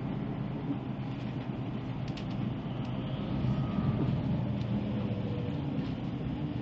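Connexxion Zuidtangent bus running, with a steady low drone of engine and road noise and a few faint ticks.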